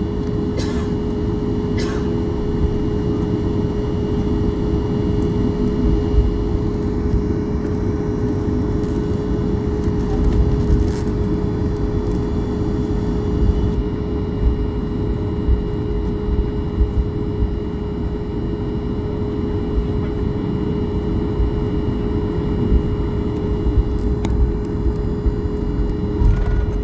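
Cabin noise of a jet airliner taxiing: the engines' steady hum holding one pitch over a low, uneven rumble from the wheels rolling on the taxiway. A few faint clicks sound in the first seconds.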